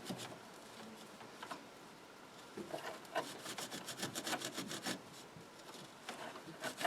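An abrasive scrubbing pad being rubbed back and forth over the metal pins of a pinball machine's Jones plug connector to clean off crusty deposits. It is faint at first, then quick, regular scrubbing strokes start about two and a half seconds in.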